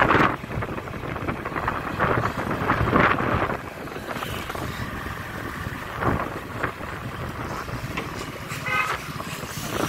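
Wind rushing over the microphone on a moving motorcycle, with the bike's engine running underneath, swelling and easing in gusts. A short run of high beeps comes near the end.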